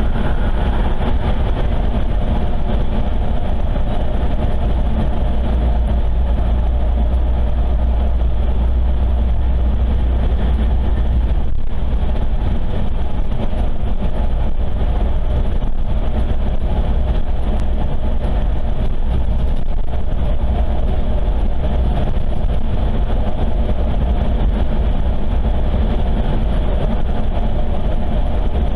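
Car driving along a highway: a steady low rumble of road and engine noise that does not change.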